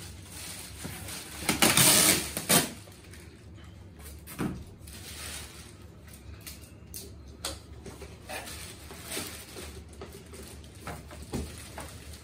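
Plastic wrapping rustling and the crib frame being handled, with a louder burst of rustling and clatter about two seconds in, then scattered knocks and clicks from its legs and plastic fittings.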